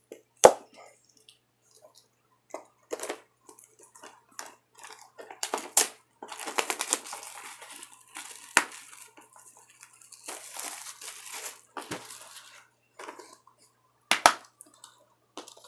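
Plastic shrink-wrap being slit and peeled off a Blu-ray case, crinkling in long stretches, with several sharp clicks and knocks of the plastic case, the loudest about half a second in.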